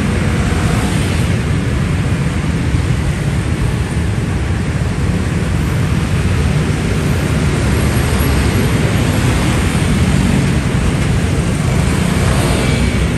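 Dense road traffic passing in a steady, unbroken mass of engine and tyre noise. Nearer vehicles swell past about a second in and again near the end.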